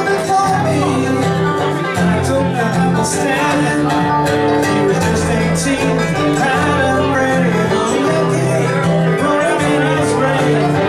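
Music with guitar and sustained bass notes over a steady beat, playing as an outro.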